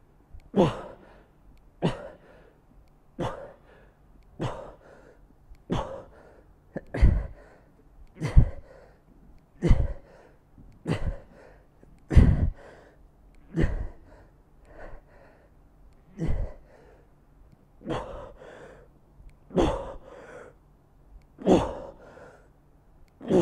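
A man breathing hard in time with bent-over dumbbell rows against resistance bands: a sharp, forceful breath with each rep, about 17 of them, roughly one every second and a quarter, spacing out a little near the end as he tires.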